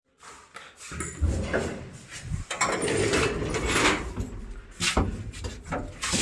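Passenger lift (elevator) rumbling and clattering as its doors and cabin move, with a few sharp knocks over a steady low rumble starting about a second in.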